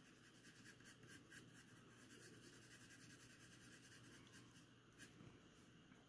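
Faint scratching of a pencil shading on drawing paper, in quick repeated strokes that stop near the end.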